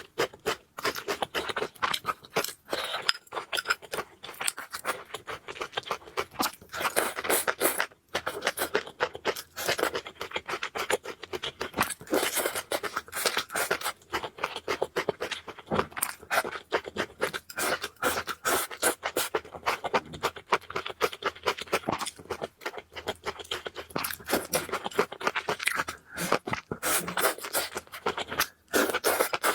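Close-miked eating sounds of noodles and hotpot food: a dense, continuous run of chewing clicks and scrapes.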